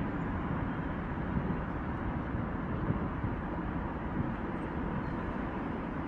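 Steady rumble of road traffic crossing a highway bridge, with uneven low buffeting from wind on the microphone.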